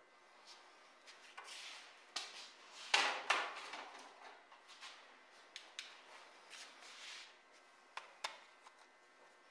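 Scattered light clicks, knocks and rubbing from hands handling a marker and the steel tool bit and cube set up in a surface grinder's vise. The loudest is a pair of sharp knocks about three seconds in. The grinding wheel is not running.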